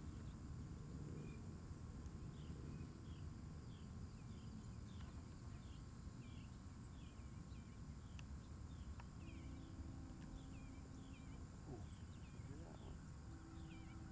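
Faint open-field ambience: a low rumble of wind and microphone noise, with short high chirps repeating about twice a second. A faint steady hum joins about nine seconds in.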